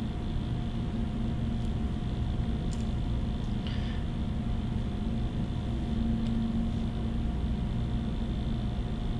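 Steady low hum of room and equipment noise with a few faint, brief ticks.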